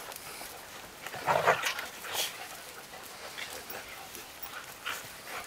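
Several dogs barking and yelping, with one loud bark just over a second in and another soon after.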